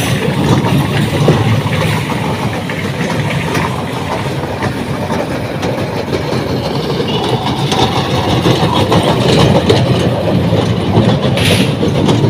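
Kiddie train ride's small cars rolling around a circular steel track, running steadily.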